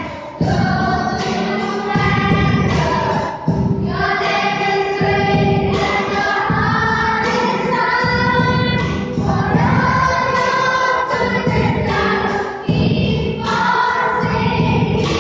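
Children's school choir singing together, in sung phrases with short breaks between them.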